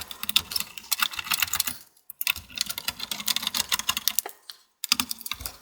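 Sped-up time-lapse audio of hands working inside a desktop PC tower to take off the CPU heatsink: a dense, fast stream of clicks and rattles, broken by short silences about two seconds in and again near the end where the time lapse cuts.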